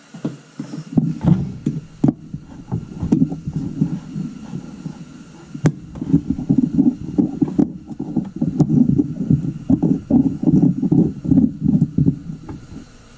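Rapid, irregular low thumps and knocks of hands handling tools and parts, with a single sharp click a little past halfway.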